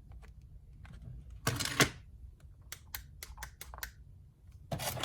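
Screwdrivers and their plastic packaging tray being handled. There is a short scraping rustle about one and a half seconds in, then a quick run of light clicks a little later.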